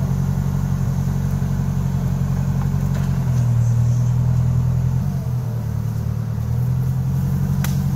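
Off-road vehicle engine running steadily: its note rises and grows louder about three seconds in, drops and wavers around five seconds, then settles back a little before the end. A single sharp click near the end.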